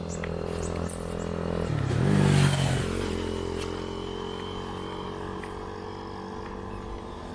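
Motor vehicle engine running steadily, growing louder with a brief rise in pitch about two seconds in, then easing back to a steady hum.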